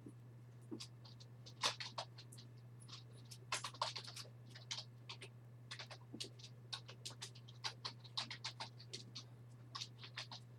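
A run of irregular light clicks and scratches, close together in places, over a steady low hum.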